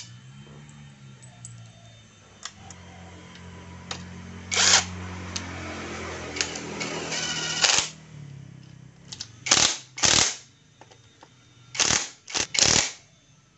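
Crankcase bolts on a Yamaha Vixion engine being run in with a tool: a low hum under the first half, then a string of short, sharp, rasping bursts, several in quick succession near the end.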